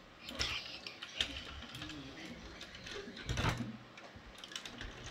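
Toy car pushed by hand across a tabletop and over a carved decorative piece: a run of small clicks and rattles from its wheels and body, with a louder knock a little past three seconds in.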